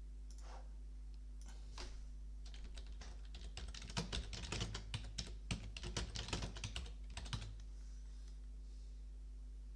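Typing on a computer keyboard: a few single key clicks, then a quick irregular run of clicks lasting about five seconds in the middle, over a steady low hum.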